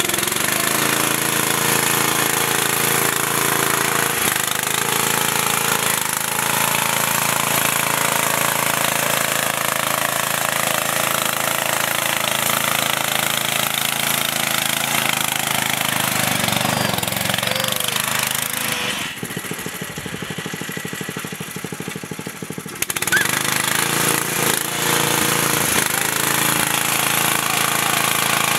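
Riding lawn mower's small engine running hard at high throttle. It drops quieter for a few seconds about two-thirds of the way through, then comes back up.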